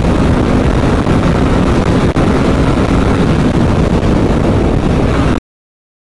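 Motorcycle running on the move, its engine mixed with heavy wind noise on the microphone; a steady low noise that cuts off abruptly about five and a half seconds in.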